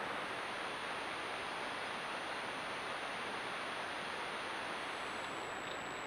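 Steady hiss from a trail camera's microphone, with a thin, high, steady whine over it that shifts to a slightly lower pitch near the end.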